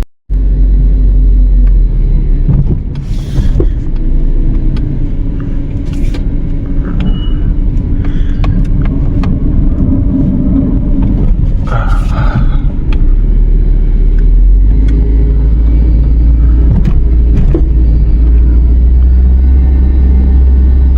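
A vehicle in motion gives a steady, heavy low rumble with faint steady tones above it, and now and then a sharp click or rattle.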